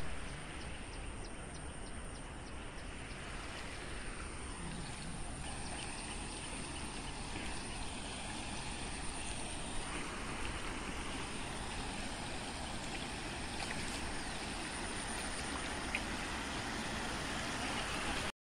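River water rushing steadily, with a few faint clicks; it cuts off abruptly just before the end.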